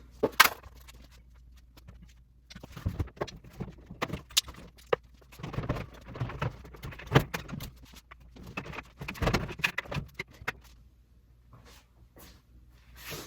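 Parts of a disassembled dryer being handled, with bursts of clinks, knocks and rattles and short pauses between them, while the remaining drum guide wheels are checked for a bad bearing.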